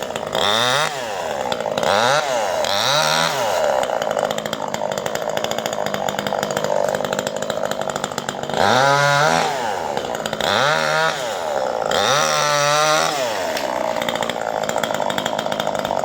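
Chainsaw engine revved up and down repeatedly: three quick revs in the first few seconds, then three longer revs between about nine and thirteen seconds, running steadily in between.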